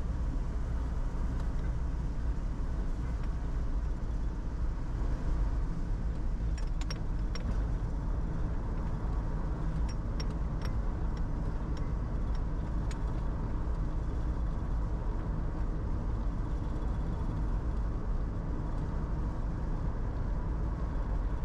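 Road noise inside a moving car: a steady low rumble of tyres and engine at cruising speed, with a few faint clicks partway through.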